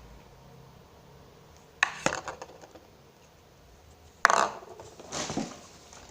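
Plastic slime container being handled and opened: a sharp click about two seconds in, then louder scraping and rustling of the lid and packaging past the four-second mark.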